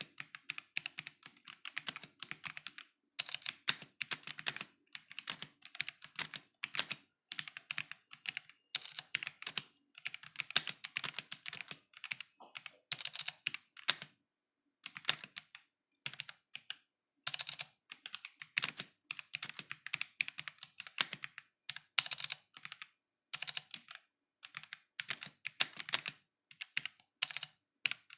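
Stock K66 mechanical keyboard with Gateron Black linear switches being typed on: quick runs of clacking keystrokes broken by short pauses.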